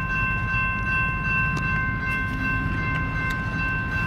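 Railroad crossing electronic warning bells (General Signals Type 2) ringing with a steady high-pitched tone while the crossing is activated and the gate arms come down, over a low rumble.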